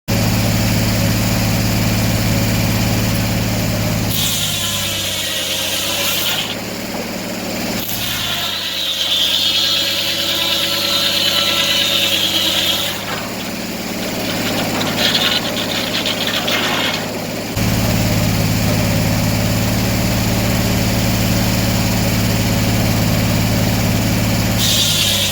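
Sawmill engine running steadily. Between about 4 and 17 seconds the saw cuts through wood in several stretches with a high hissing sound, and the engine note changes under the load.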